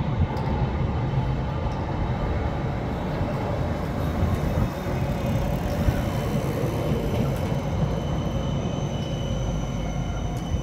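Electric street tram running along its rails, a steady rumble of wheels on track.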